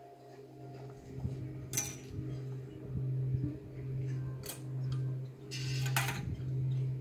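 Metal awning poles clinking and scraping as they are handled, a sharp clink about two seconds in and a longer rattle near the end. Under them a steady low hum swells and fades about once a second.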